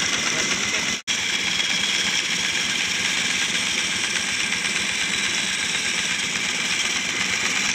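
Homemade wooden-framed bandsaw running and cutting through a timber board along a curve: a steady mix of motor and blade noise with a sawing hiss. The sound drops out for an instant about a second in.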